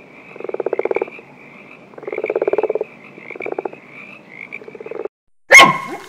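Frog croaking: a run of short rattling croaks, each under a second and about one a second, growing fainter toward the end. After a brief gap, a sudden loud call with a gliding pitch breaks in near the end.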